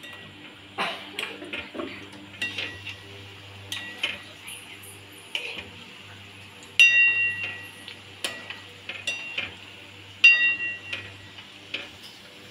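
Metal spoon clinking and scraping in a metal kadhai while onion pakoras fry in hot oil, with a steady sizzle underneath. Twice in the second half the spoon strikes the pan harder and leaves it ringing.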